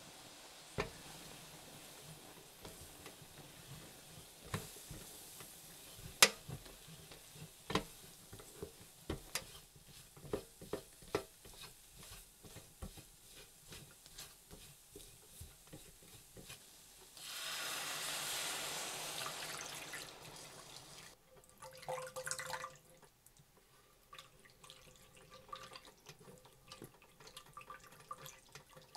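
A silicone spatula clicking, knocking and scraping against a stainless steel skillet as flour is stirred into sautéed vegetables. About 17 seconds in, a few seconds of liquid pouring into the pan in a steady rush, followed by a silicone whisk stirring the thin sauce.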